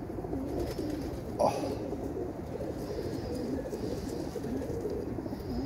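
Domestic pigeons cooing, several birds overlapping in a low, wavering murmur. One short, louder sound stands out about a second and a half in.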